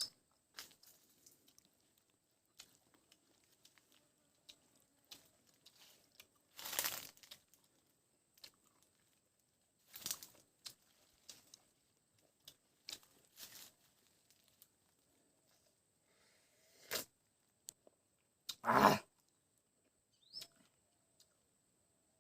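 A person eating a lemon: irregular chewing, sucking and tearing noises at close range, with several louder bursts, the loudest near the end.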